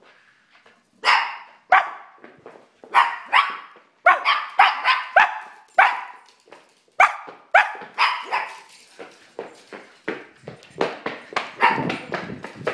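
A man imitating a dog, barking over and over in a long run of short barks, one or two a second.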